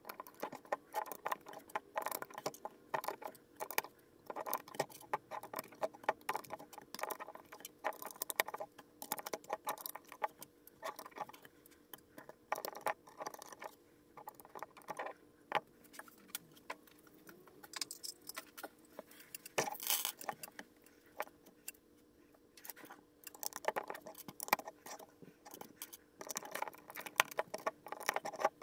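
Plastic LEGO bricks clicking and rattling as hands handle a build and press pieces onto it: many small, irregular clicks, with one louder, sharper click about two-thirds of the way through.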